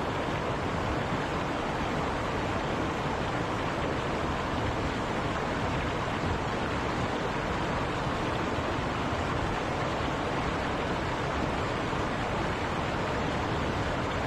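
Steady, unbroken rain sound: a dense even hiss of falling rain with no separate drops or thunder standing out.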